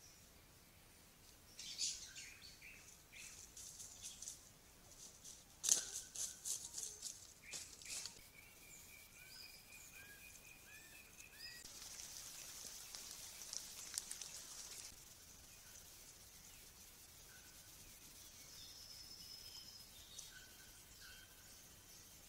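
Faint forest-floor sounds from camera-trap clips. Scattered rustles and clicks in dry leaf litter mix with bird calls, including a rapid even trill and short rising notes. A steady high insect chorus follows, then a few brief whistled calls near the end.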